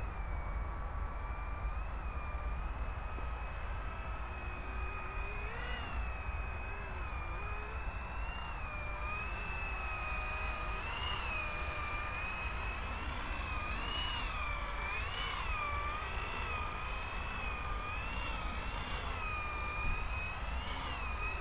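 Blade 120 SR micro RC helicopter's electric motors and rotors whining steadily, the pitch wavering up and down with the throttle as it flies and hovers.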